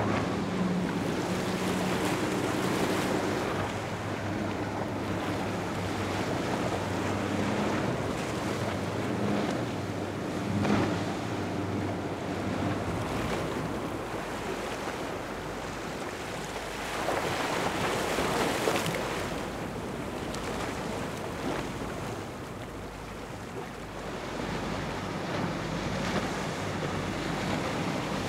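Boat engines running past on open water, a steady low drone in the first half, under a constant wash of waves and wind buffeting the microphone; about two-thirds in a louder rush of water and wind swells up and fades.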